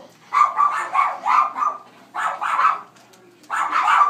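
A dog barking repeatedly in quick runs of two to four short barks, with brief pauses between the runs.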